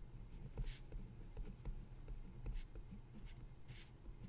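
Pen writing on paper: faint, short scratching strokes with brief pauses between them.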